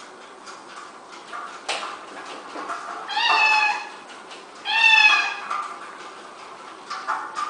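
A cat meows twice, two calls about a second and a half apart, each falling slightly in pitch. Light clicking and knocking from the cat exercise wheel turning as the cat runs in it goes on underneath.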